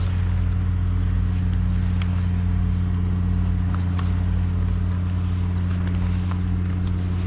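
Engine idling with a steady, even low hum, with a few faint ticks over it.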